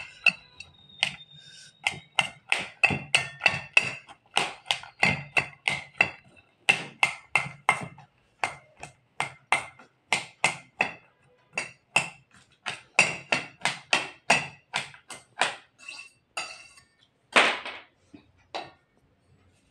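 A kitchen knife cuts potatoes inside a steel bowl. The blade strikes the bowl in quick, ringing taps, several a second, in runs with short pauses.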